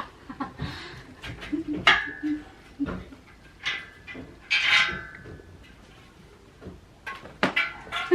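Metal bed-frame parts knocking and clanking as they are handled and fitted together, with a few short high squeals.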